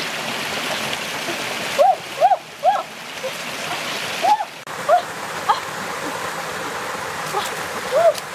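Shallow rocky stream running steadily. Over it come about seven short, pitched calls from an animal, each rising then falling, in a cluster around two seconds in, again around four to five seconds, and once near the end; these calls are the loudest sounds.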